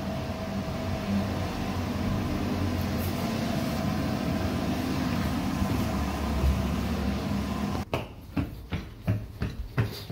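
Steady hum of running machinery in an engine-room compartment. It cuts off sharply about eight seconds in as a door shuts, and is followed by quick footsteps climbing stairs.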